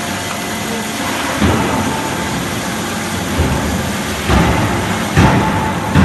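Horizontal metal band sawing machine running, its blade cutting through a solid round steel bar under coolant, with a steady mechanical noise. Several short low thumps come from about a second and a half in.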